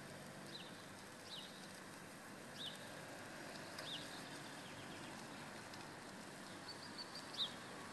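A small bird chirping faintly in short, high, falling calls, about five of them, with a quick run of notes just before the last and loudest call near the end. A low, steady background hum runs underneath.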